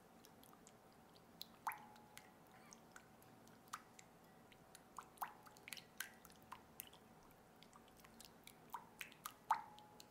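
Silicone spatula stirring liquid in a glass bowl: faint scattered clicks and wet scrapes, with a few sharper knocks against the glass that leave a brief ringing tone.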